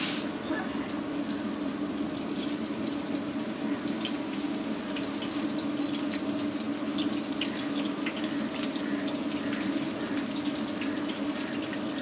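Gram-flour (besan) pakoras deep-frying in a wok of hot oil: a steady sizzle full of small crackles and pops, over a steady low hum.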